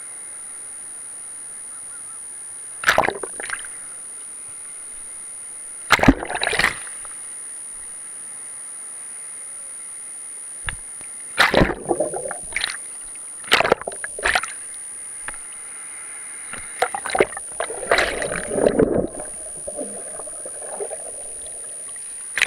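Surf washing over and around a camera at water level: irregular splashes and muffled bumps every few seconds, with a denser stretch of splashing about 17 to 19 seconds in, over a steady hiss and a thin high steady tone.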